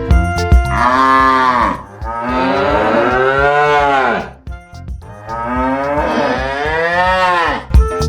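A cow mooing three times in long calls that rise and fall in pitch, the last two longer than the first. Background music can be heard briefly between the calls.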